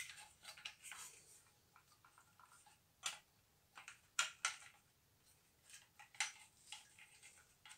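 Faint, scattered clicks and light knocks of a metal ceiling lamp housing and its cables being handled and turned over.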